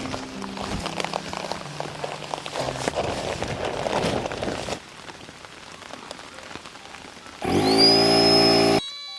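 Rain falling steadily, with a hiss that drops in level about halfway through. Near the end comes a loud, brief, steady tonal sound with a high whistle that rises and then holds, cut off sharply.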